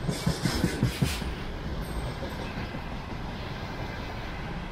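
Container freight train rolling along the track: a quick run of clacks in about the first second, then a steady rolling rumble of the wagons.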